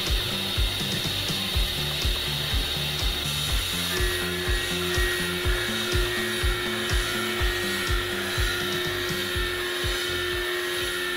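Tormach PCNC 770 CNC mill cutting a bore into thick steel plate with an end mill: a steady machining whine with even low pulses about three times a second. A second steady tone joins about four seconds in.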